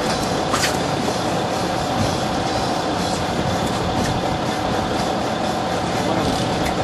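A 34-foot Tiara Pursuit sport-fishing boat's engine drones steadily under a rush of wind and water noise. There is one sharp click about half a second in.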